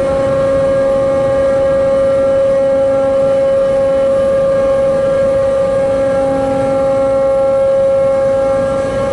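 Steady, loud tone holding one pitch with faint overtones, over a low rumble, on a car ferry's vehicle deck at the bow ramp.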